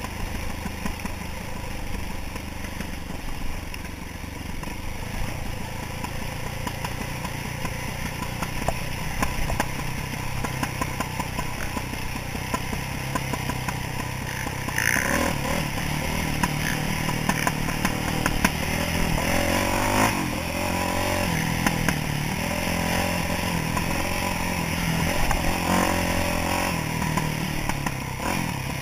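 Yamaha YZ426F dirt bike's four-stroke single-cylinder engine running while riding. The revs pick up about halfway through, rising and falling with the throttle.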